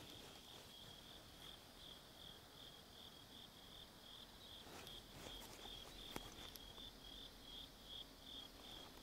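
Faint insect chirping in a steady pulsing rhythm, about three high chirps a second, with a few faint clicks around the middle.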